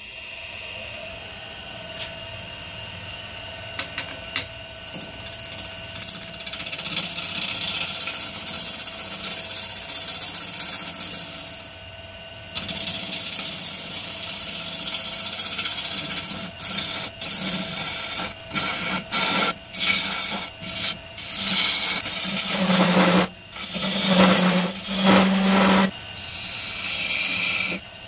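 A wood lathe motor starts up and runs with a steady whine while a gouge cuts into a spinning bark-covered log. The cutting noise comes in stretches that stop and start, and near the end it breaks into short, heavier bursts.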